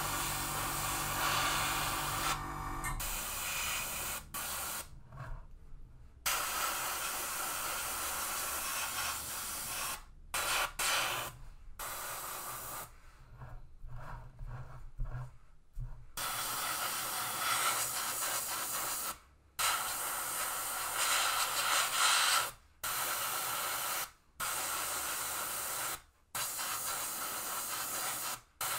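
Airbrush hissing as it sprays a light primer coat onto a plastic model kit, in stretches of a few seconds broken by short pauses as the trigger is released and pressed again.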